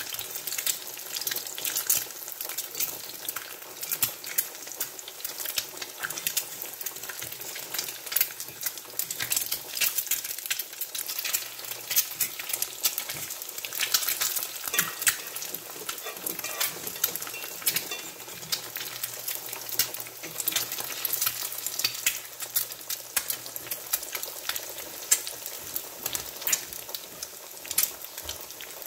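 Quail eggs frying in hot oil in a cast-iron skillet, sizzling with a steady crackle of small pops, and a metal fork now and then scraping and tapping the pan as the eggs are turned.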